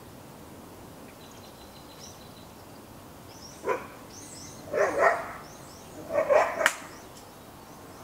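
A dog barking: one short bark about three and a half seconds in, then two longer runs of barks a second or so apart. Small birds chirp high above the barks.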